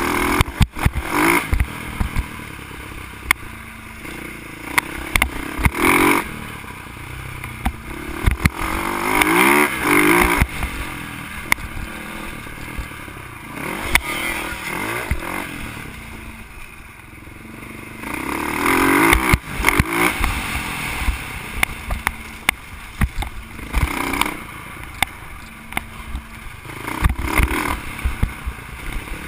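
Dirt bike engine revving up and easing off again and again as the bike is ridden along a bumpy dirt trail. Frequent sharp knocks and rattles break in throughout.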